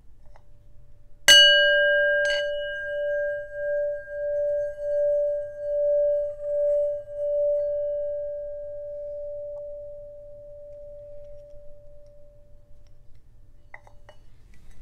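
Brass singing bowl struck with a wooden mallet about a second in and tapped again a second later, then ringing with a single pulsing, wavering tone that slowly fades out over about ten seconds. A few faint clinks of the mallet against the bowl near the end.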